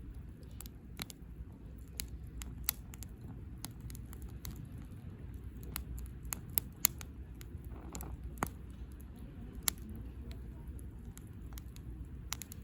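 Wood campfire crackling: irregular sharp pops and snaps from the burning wood, a few louder ones standing out, over a low steady rumble.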